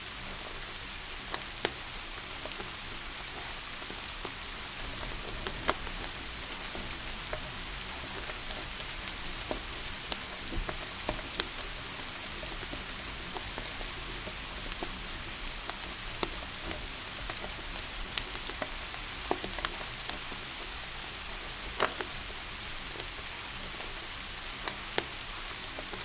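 Steady rain hiss with a wood fire crackling in a fireplace: irregular sharp pops every second or two over the even noise of the rain.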